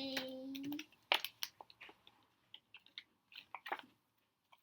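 Paper word cards being handled and pressed onto a board: scattered light taps, clicks and rustles. A child's voice holds one drawn-out, slightly falling sound in the first second.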